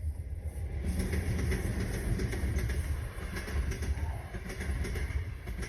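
Steady rumbling noise of a moving vehicle, louder from about a second in.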